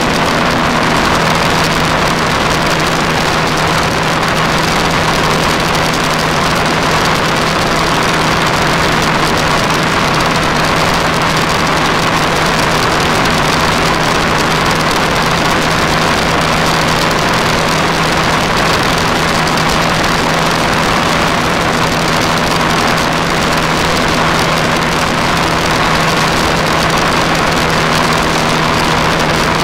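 Motorcycle cruising at highway speed: a steady low engine drone under a constant rush of wind and road noise.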